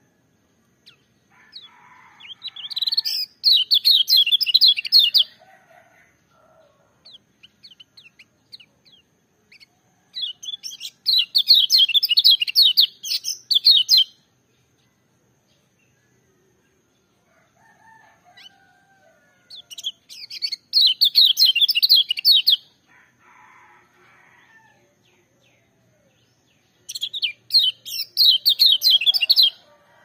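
Kecial kuning, a white-eye, singing loud, shrill bursts of rapid high warbling, four phrases of two to three seconds each, with softer, lower chirps between them.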